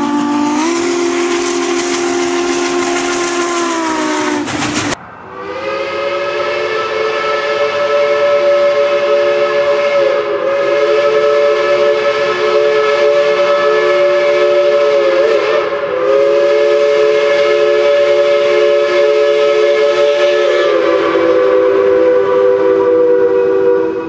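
Real steam locomotive whistle blowing over a hiss of steam, cut off abruptly about five seconds in. A long multi-note chime train whistle follows, held for most of the rest with a couple of brief dips, and drops away at the very end.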